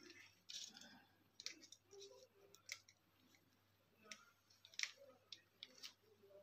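Faint, scattered clicks and light taps of a plastic bulb holder and small wiring parts being handled, about five or six in all.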